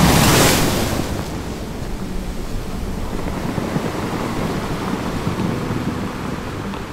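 Ocean surf: a wave breaks loudly at the start and eases off within about a second, followed by a steady rush of surf and wind.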